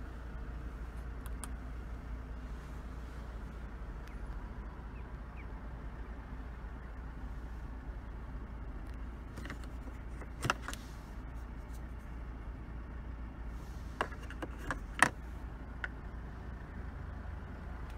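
Low steady hum inside the cabin of an Audi A5 with its 2.0-litre TFSI four-cylinder idling. A few sharp clicks come in the second half, one on its own and then a quick cluster of four.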